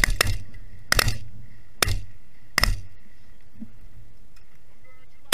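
Four shotgun shots in quick succession, each under a second apart.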